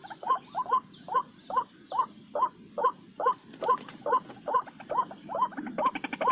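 White-breasted waterhen (ruak-ruak) calling, its short nasal notes repeated steadily about two and a half times a second. A fast rattling ticks in briefly around the middle and again near the end.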